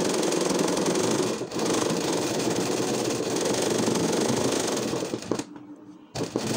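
Sewing machine running at speed, stitching a small zigzag fill for machine embroidery. It dips briefly about a second and a half in, stops for about a second near the end, then starts again.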